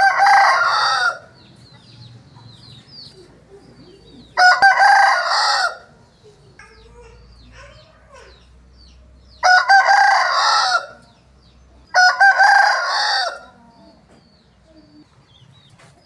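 Rooster crowing four times, each crow about a second and a half long, a few seconds apart.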